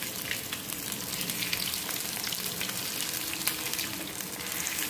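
Breadcrumb-coated potato cutlets sizzling as they shallow-fry in hot oil in a stainless steel pan, a steady hiss full of small crackles.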